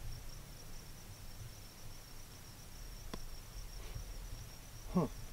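Crickets chirping steadily at night, with a faint low rumble under them. About three seconds in there is a single faint click, and near the end a short sound falling in pitch.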